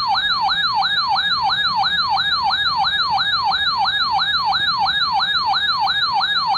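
Electronic siren-style alert tone, a fast repeating wail about three and a half cycles a second, sounding as a NOAA Weather Radio severe thunderstorm warning alert.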